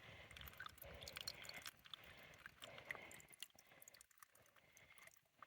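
Water being filtered by hand: a faint trickle with soft squishes of the filter pouch in pulses about a second apart, dying away a little past halfway.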